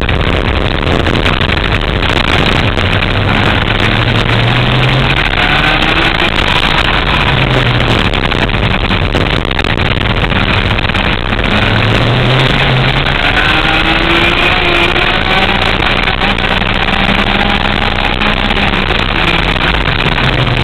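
Go-kart engine heard from an onboard camera at speed, its pitch climbing and falling several times as it is driven hard around the lap, under a loud, even rushing noise.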